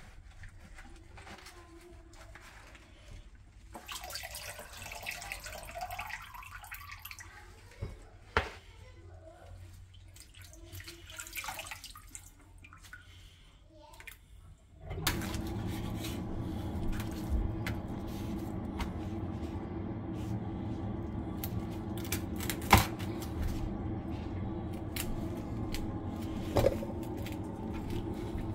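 Water running from a kitchen tap onto greens in a plastic colander over a metal sink, with splashing and dripping. About halfway through, a louder steady hum takes over, with a couple of sharp knocks.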